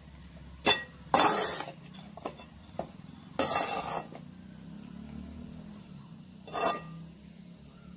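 Metal spatula scraping and knocking against a metal pan while stirring and tossing fried rice. There is a sharp clink under a second in, longer scrapes a little after one second and around three and a half seconds, and a shorter one near the end, over a low steady hum.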